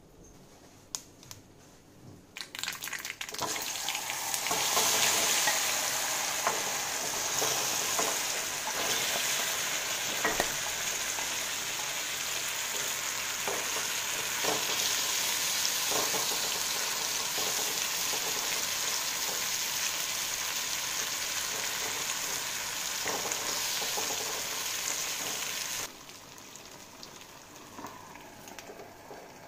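Taro root slices frying in oil and masala in a kadai, a loud steady sizzle that starts a few seconds in, with scrapes and knocks of a wooden spatula stirring them. The sizzle cuts off suddenly near the end.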